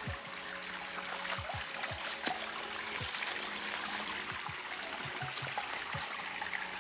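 Small stream trickling, with background music laid over it: a beat of short low thumps and a few held tones.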